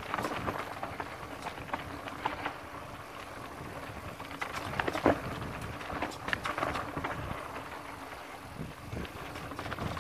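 Mountain bike rolling down a dirt trail: tyres running over loose dirt and the bike rattling, with scattered knocks over bumps and a sharper knock about five seconds in.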